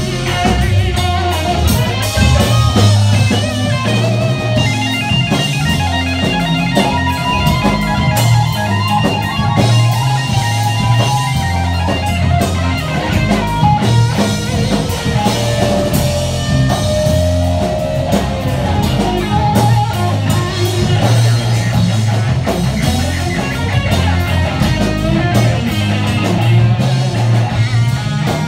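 Live rock band playing loudly: an electric guitar carries a lead line with bent, gliding notes over steady bass and drums.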